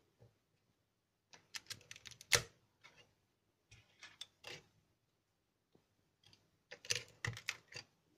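Small plastic Lego pieces clicking and tapping as they are handled and pressed onto a Lego plate on a wooden tabletop, in three short clusters of clicks: about a second in, around the middle, and near the end.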